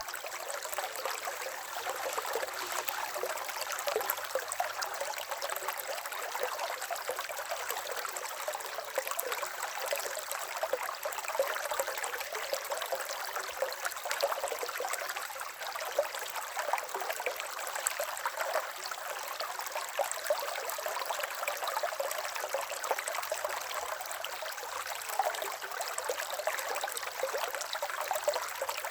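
River water flowing steadily, a continuous babbling rush full of small splashes and gurgles.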